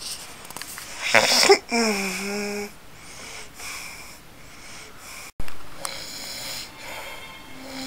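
A man snoring heavily in a deep sleep. About a second in comes one loud wheezing snore that rises to a whistle and then slides down in pitch, followed by quieter rasping breaths.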